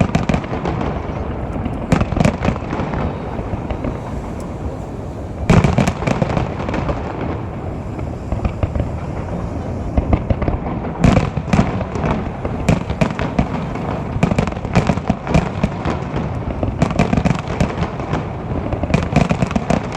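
Fireworks going off over the sea: a continuous run of booms and sharp crackling reports, with a big boom about five and a half seconds in and denser, rapid cracks in the second half.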